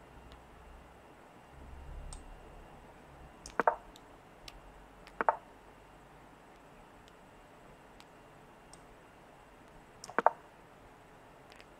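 Online chess game's piece-move sounds: three sharp wooden-sounding clicks as moves land on the board, a little over three seconds in, about five seconds in and near the end, with a few much fainter ticks between them.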